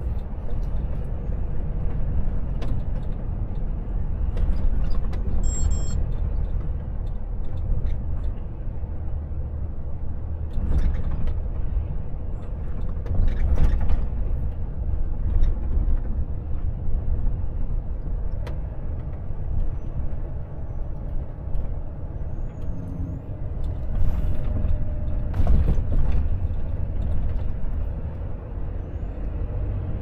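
Volvo FH truck on the move: a steady low engine and road rumble, with a few short louder rushes of noise about a third of the way in and again past two-thirds.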